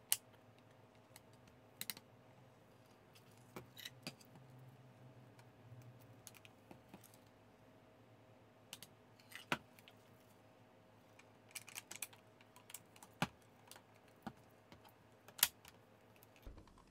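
Scattered light plastic clicks and knocks from the HP NeverStop toner cartridge's housing and side plate being handled and pressed together, irregular and spaced a second or more apart, the sharpest near the start and late on. A faint steady hum sits underneath.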